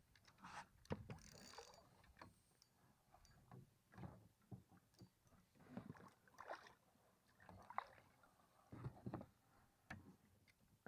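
Faint, irregular small water splashes and knocks as a landing net is worked in the water beside an inflatable boat, with a hooked fish at the surface.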